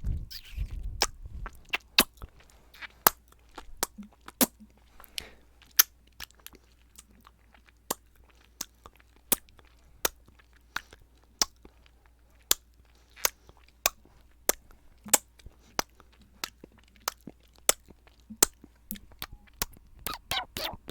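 A long string of sharp, close-miked ASMR clicks, irregular at about two a second, with quieter softer clicks between them.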